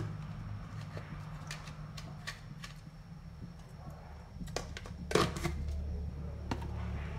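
Scattered clicks and a short burst of crackling about five seconds in as a pinch of salt is dropped into cooking oil heating in a steel wok, over a steady low hum.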